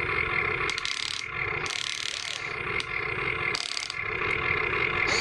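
Electric motors of an RC model excavator whining steadily as its arm and bucket move, with a few short spells of scraping and gear clicking as the bucket digs into loose dirt.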